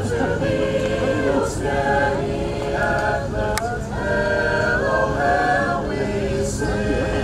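Senior class chorus singing the school alma mater, holding long choral notes in phrases with a short break near four seconds in. A single sharp click sounds about three and a half seconds in.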